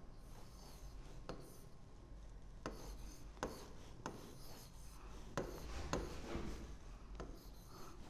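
Stylus writing on the glass of an interactive flat-panel display: faint rubbing strokes with several sharp taps of the stylus tip as digits are drawn.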